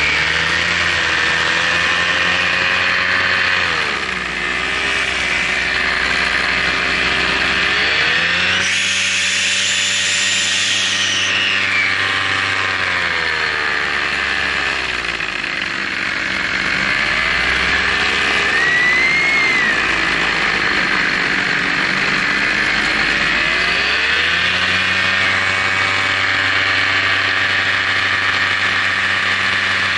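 Motor and propeller of a radio-controlled model aircraft, heard through the aircraft's onboard camera, running continuously over a steady hiss. Its pitch drops and climbs again several times as the throttle changes, with dips at about 4, 15 and 21 seconds in.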